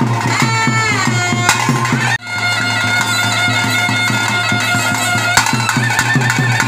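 Traditional Tulu kola ritual music: a reed wind instrument plays a wavering, gliding melody over steady, regular drumbeats. The music drops out for an instant about two seconds in.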